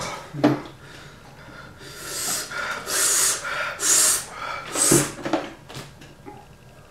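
A person blowing out hard, hissing breaths through pursed lips, four or five in a row, to cool a mouth burning from hot peppers and hot sauce. A couple of sharp knocks from a plastic jug and bottle being handled.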